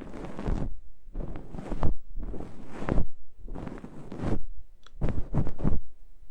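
Fluffy ear-cleaning stick brushing across the microphone, in soft sweeping strokes about once a second, with a run of quick short strokes near the end.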